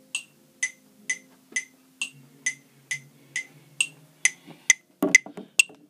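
Metronome app on a smartphone clicking steadily, about two clicks a second, the clicks coming closer together over the last two seconds as the tempo is raised.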